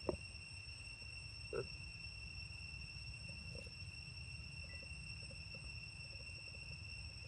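Steady high-pitched insect trill, crickets, unbroken, over a low background rumble, with a few faint short sounds.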